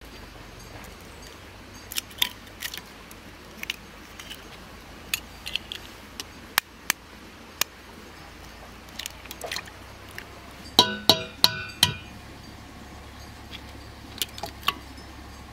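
Cooking utensils and dishware tapping and clinking at irregular intervals. About eleven seconds in come four quick ringing clinks close together, the loudest sounds here.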